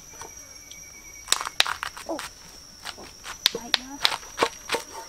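Irregular sharp knocks or clicks, about two a second from a little over a second in, with a few brief voice sounds and a steady high thin whine behind.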